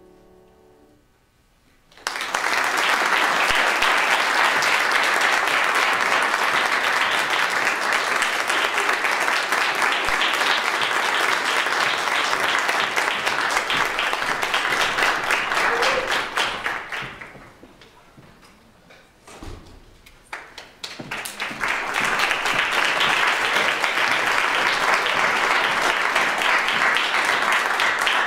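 Audience applause breaking out about two seconds in, as the piano's last chord dies away. It thins out and nearly stops about seventeen seconds in, then starts up again a few seconds later.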